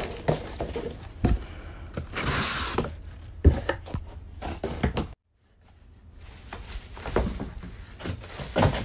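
Cardboard box and plastic-wrapped electric fan parts being handled: rustling with scattered knocks and bumps, broken by a moment of dead silence about five seconds in.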